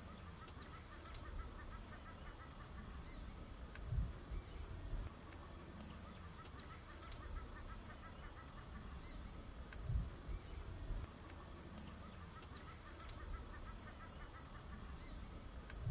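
Bush ambience: a steady high-pitched insect drone, with a bird calling over and over in short repeated notes. Two low thumps stand out, about four seconds in and again some six seconds later.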